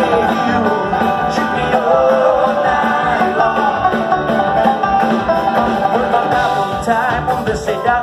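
Live band playing a country-bluegrass style rock cover on acoustic guitar and double bass with a steady beat, with singing, heard loud from the crowd.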